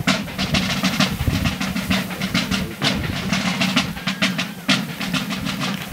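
A line of military side drums beating a rapid marching cadence, with many sharp, closely spaced strokes.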